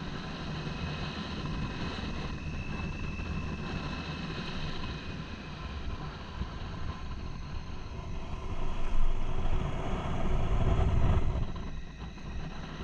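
Motorcycle running along the road, engine sound mixed with wind and road noise. About eight seconds in it swells into a louder low rumble for some three seconds, then drops back.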